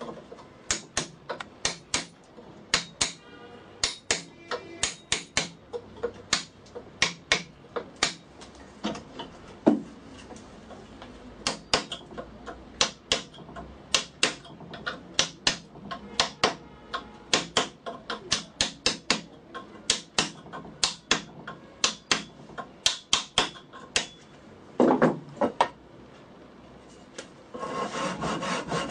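A hammer tapping a chisel into hardwood clamped in a steel bench vise, with sharp taps in quick runs of about two a second; the wood is too hard to pare by hand. Near the end a long file starts rasping back and forth across the wood.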